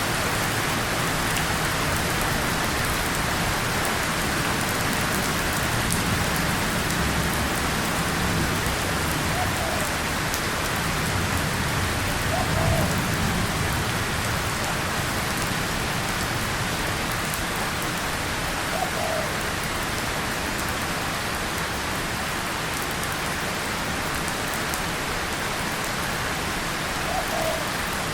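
Steady, heavy rain falling on a tin surface and on leaves, with a low rumble that swells in the middle and a few brief, faint plinks.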